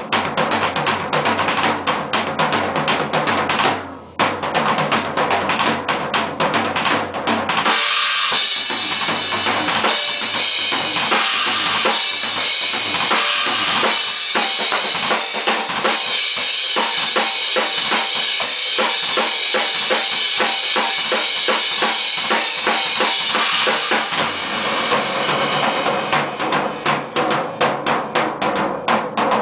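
Drum kit solo: fast strokes on snare, toms and bass drum, with a short break about four seconds in. From about eight seconds a long stretch of Sabian and Paiste cymbals ringing over quick drum strokes, then the drums take over again near the end.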